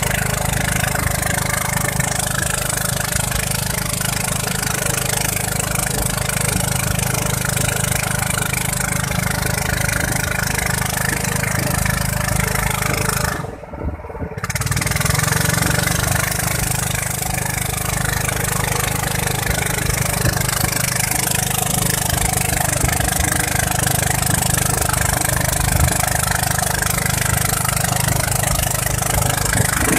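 Motorboat's engine running steadily under way, with water rushing along the hull; the sound drops out briefly about halfway through.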